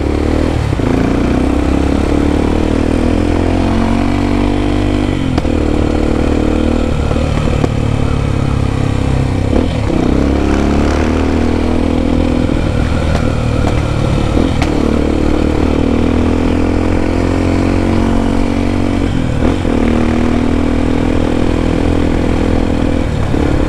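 Honda XR250 Tornado's single-cylinder four-stroke engine breathing through a BelParts Classic aftermarket exhaust, ridden through the gears. The exhaust note climbs steadily in pitch and drops back at each of several gear changes.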